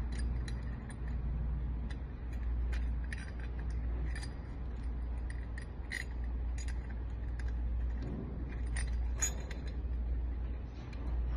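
Scattered small metallic clicks and clinks of lock parts, screws and keys being handled while a lock is reassembled, over a steady low hum.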